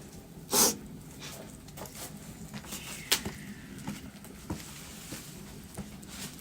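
Wood fire crackling with scattered small pops, a loud pop about half a second in and a sharp crack about three seconds in. The firewood is damp and slow to burn.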